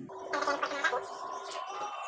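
A short burst of laughter about half a second in, over a steady held tone.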